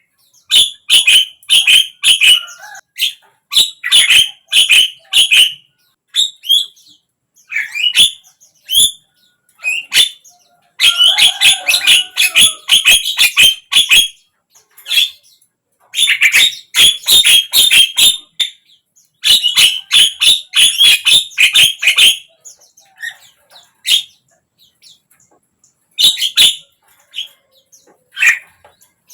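Javan myna (jalak kebo) singing in bursts of rapid, harsh chattering and clicking phrases, each a second or a few long, with short silences between them.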